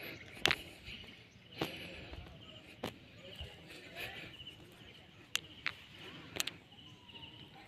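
Faint outdoor ambience: a steady, high, pulsing chirring in the background, with about six sharp clicks and taps scattered through it.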